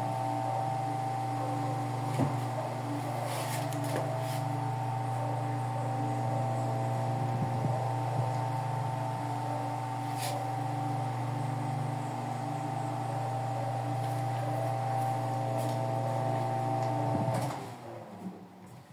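Mondial table fan running without its guards: a steady electric motor hum with a few light clicks. Near the end the hum stops and the sound quickly fades away.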